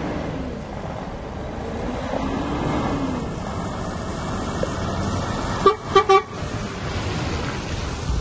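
2014 DAF CF 460 tractor unit's PACCAR MX-13 straight-six diesel running as the truck drives slowly up and turns, with three short toots of a vehicle horn in quick succession about six seconds in.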